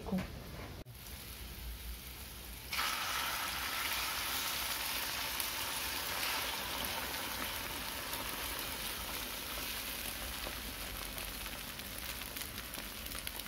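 Beaten egg mixture poured into a hot frying pan of bacon and bacon fat, sizzling. The sizzle starts suddenly about three seconds in and then goes on steadily.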